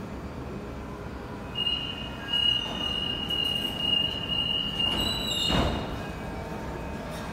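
Metro train pulling into an underground platform: a steady rumble with a high, steady squeal from about a second and a half in until about five seconds in, then a brief louder rush of noise.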